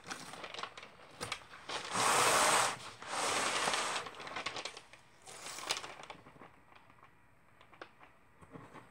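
ATG adhesive transfer tape being unrolled by hand and pressed along the back edge of a wooden picture frame. The tape comes off the roll in two long, loud noisy stretches about two and three and a half seconds in, and a shorter one near six seconds, with small clicks and taps between.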